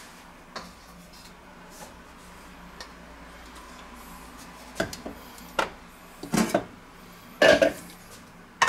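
Kitchenware clattering: a glass lid lifted off a stainless steel pot and a ladle handled, giving a few sharp clinks and knocks. They come more often and louder in the second half.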